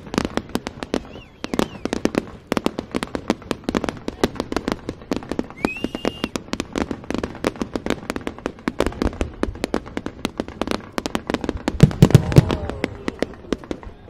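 Fireworks display: many shells bursting in quick succession as a dense run of sharp cracks and bangs. A short rising whistle comes about six seconds in, and a cluster of heavier low booms, the loudest part, comes around twelve seconds.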